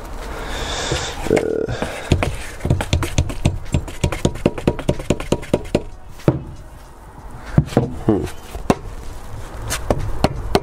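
Rubber mallet knocking against a Honda GX340 engine at the flywheel, striking to free the flywheel from the crankshaft. The knocks are sharp and closely spaced, settling into a steady run of about three to four blows a second near the end.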